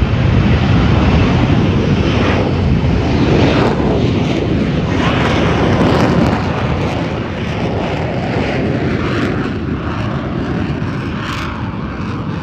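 F-35 Lightning II fighter jet flying past with loud jet engine noise, which begins to fade about six seconds in as it moves away.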